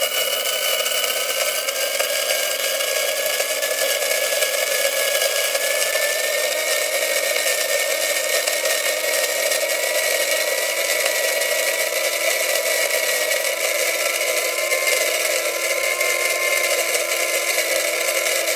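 Electric coffee grinder running continuously, grinding coffee beans: a steady motor whine over the dense grinding noise, its pitch creeping up slightly in the first several seconds.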